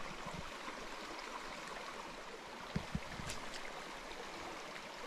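Small brook running over its stones: a steady rushing and babbling of water, with two soft knocks close together about three seconds in.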